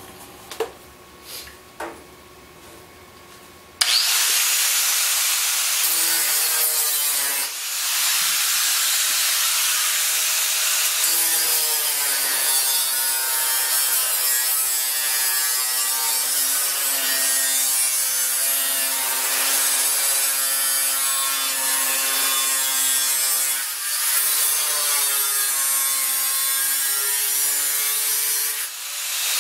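Angle grinder with a cutoff wheel cutting through sheet steel: after a few knocks of handling, the grinder bites in about four seconds in with a loud, steady rasping hiss and a whine that wavers in pitch as the wheel loads, easing briefly twice.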